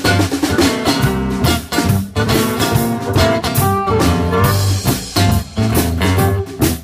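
Live blues band playing an instrumental passage: harmonica over an archtop acoustic guitar, electric bass guitar and drum kit.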